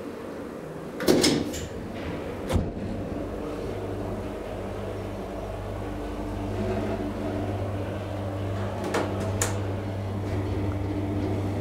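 DEVE hydraulic elevator running: a steady low hum from the hydraulic drive as the car rises, with sharp clunks about a second and two and a half seconds in as it sets off, and two clicks about nine seconds in as it slows to stop at the landing.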